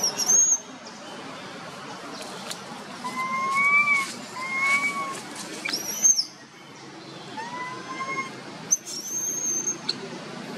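A baby macaque giving thin, whistle-like coo calls, each a short note that rises then falls, several in a row with pauses between them. A few sharp, high squeals are mixed in, near the start, about six seconds in and about nine seconds in. These are the distress cries of an infant that its mother no longer lets nurse.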